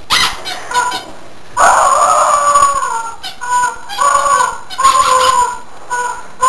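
Chickens squawking loudly in a rapid string of short, shrill, broken cries that fall slightly in pitch, with only brief gaps between them.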